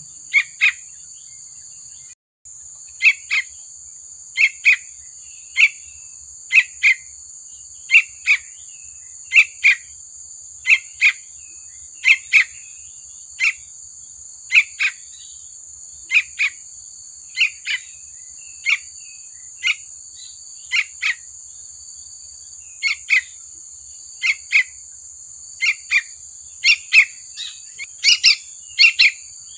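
Juvenile yellow-vented bulbul (trucukan) giving short chirping calls, mostly in pairs, about one a second and coming faster near the end. A steady high insect drone runs behind.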